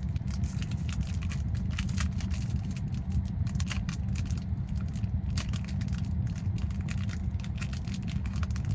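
A foil trading-card pack wrapper crinkling and crackling as it is worked open, with many quick sharp crackles over a steady low rumble.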